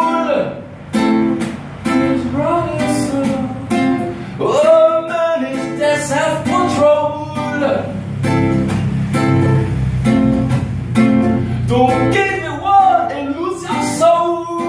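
A man singing a song while strumming a nylon-string classical guitar, with steady rhythmic strums under his voice.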